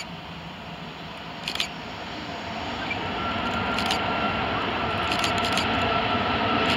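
Boeing 757 airliner landing on a wet runway: a steady rush of jet engine noise that grows louder, with a high whine coming in about three seconds in. A few light clicks sound over it.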